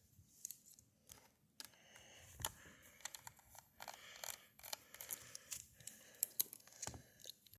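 Faint, scattered clicks and light scraping of a small screwdriver turning out screws in a Lenovo screen assembly, with small handling ticks.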